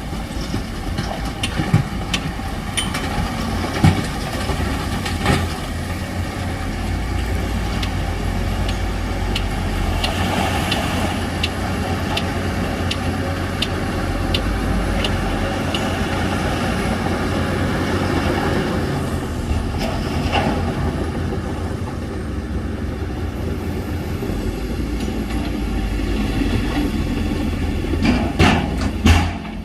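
Heavy diesel earthmoving machine engine running steadily, with scattered sharp metallic clanks and knocks and a cluster of louder knocks near the end.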